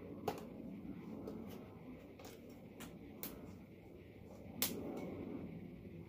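Plastic and metal parts of a Mondial Turbo Cycle 1100W vacuum cleaner being handled and pushed together: a few sharp clicks and knocks as the stainless steel extension tube is fitted to the handheld body, the loudest click a little before the end.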